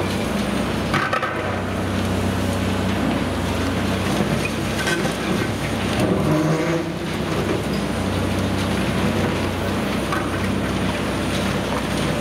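Caterpillar 330D demolition excavator's diesel engine running under hydraulic load while its crusher jaws break reinforced concrete, with cracking and the rattle of falling chunks. The engine hum drops away briefly about a second in and again for a couple of seconds in the middle, then returns.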